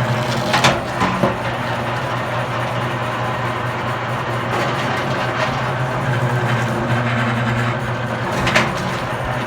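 Commercial electric wire stripping machine running with a steady motor hum as thick copper cable is fed tightly through its blades. Three short sharp clicks: two in the first second and a half, one near the end.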